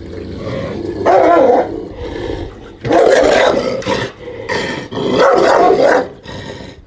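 A Dogo Argentino barking and growling at the kennel fence in three loud, rough outbursts, each about a second long. It is an aggressive guarding display at the person outside its box.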